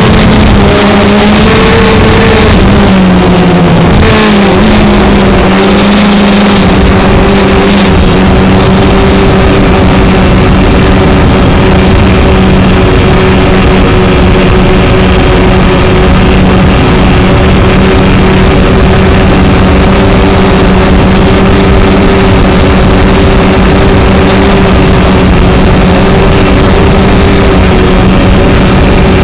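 Model airplane's motor and propeller droning at a steady pitch, heard close up from the onboard camera with wind rush over it. The pitch dips and wavers a few seconds in, then holds steady.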